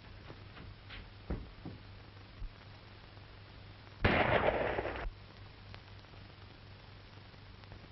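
One handgun shot about four seconds in: a loud crack that rings on for about a second before cutting off. A few faint knocks come before it.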